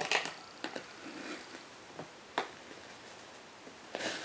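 Small wooden-framed glass specimen box being handled and set down on a cloth surface: a few sharp, scattered clicks and taps.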